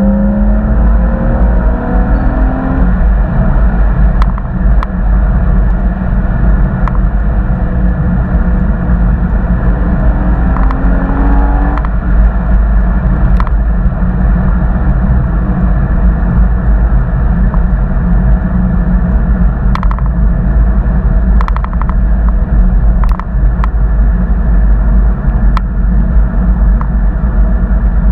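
2013 Porsche Boxster's flat-six running loud over a heavy low rumble, its pitch rising as it accelerates near the start and again around the middle, then holding steady. Sharp ticks crop up every few seconds, the ticking that the uploader says GoPro Hero 4 Wi-Fi remote use puts on his recordings.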